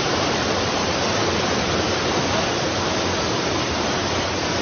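Flash-flood water rushing down a street in a fast, muddy current: a steady, even rush of water.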